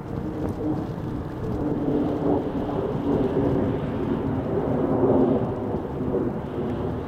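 Powered parachute's engine and propeller droning in flight: a low rumbling noise with a wavering hum, swelling a little about five seconds in.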